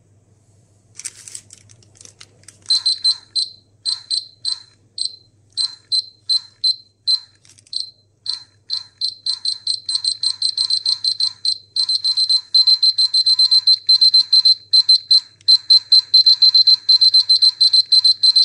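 Polimaster PM1703-GNA radiation dosimeter's electronic beeper sounding short, high-pitched beeps. They start unevenly a few seconds in and quicken to rapid beeping in the second half, the way the detector signals a rising count rate.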